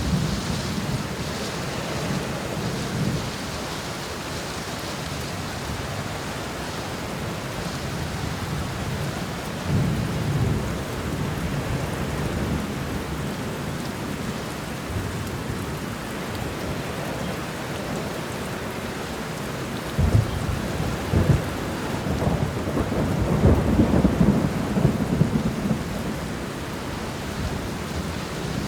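Steady heavy rain falling, with low rolling thunder rumbling through it: one swell about ten seconds in and a longer, stronger stretch of rumbles from about two-thirds of the way through.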